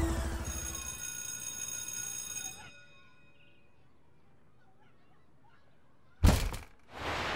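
A ringing music sting fades out, leaving a quiet stretch. About six seconds in, a sudden loud crash as a door bursts open, with a second hit near the end.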